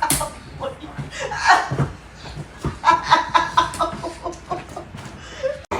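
A person laughing in quick, repeated bursts, loudest about three seconds in.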